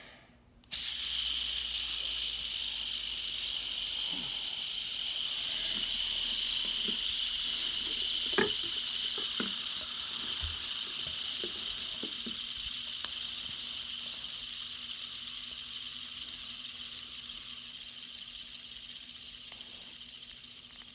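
Polka dot fidget spinner's bearing whirring, a steady high hiss that starts suddenly about a second in when it is flicked and slowly fades as the spinner winds down. A few faint clicks come partway through.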